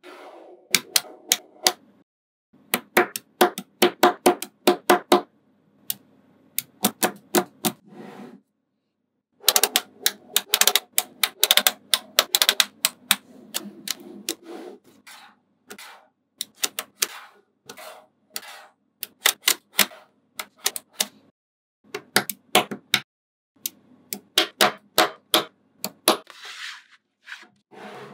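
Small neodymium magnet balls clicking sharply together as they are snapped into place one after another. The clicks come in quick runs broken by short silent gaps, with a brief rustle near the end.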